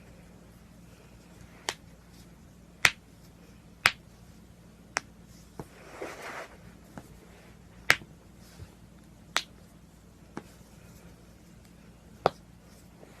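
A person's joints cracking: a series of sharp pops, about a dozen, irregularly spaced roughly a second apart, some loud and some faint. A short soft rustle comes about halfway through.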